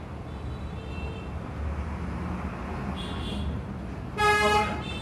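One short, loud, horn-like honk about four seconds in, over a steady low background rumble.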